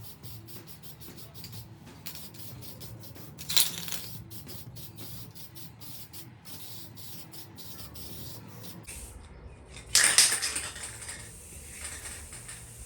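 Aerosol can of matte black spray paint hissing: one short spray about a third of the way in, then a longer, louder spray of about two seconds near the end.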